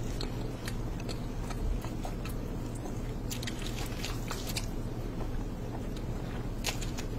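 Close-up eating sounds: a person biting and chewing a handful of saucy noodles eaten by hand, with irregular wet, crackly mouth clicks over a steady low hum.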